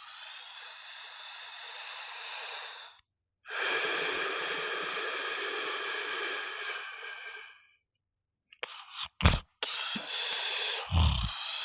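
A person snoring: two long, hissing breaths, each carrying a thin whistling tone, broken off by abrupt dead gaps. Near the end comes a cluster of short, low bursts, then a further hissing breath.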